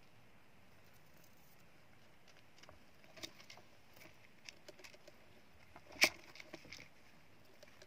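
Faint scattered clicks and rustles of a dwarf hamster scrabbling about in wood-shaving bedding at the edge of its cage, with one sharper tap about six seconds in.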